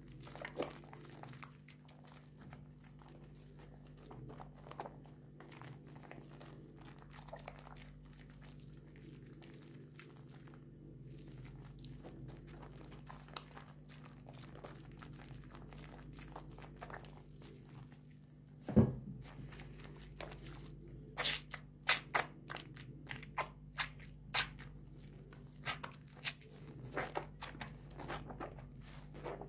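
Wet bar of soap squeezed and kneaded in thick lather by hand: squelching, crackling foam with soft clicks. About two-thirds of the way through there is one loud thump, followed by a run of sharper wet pops and clicks.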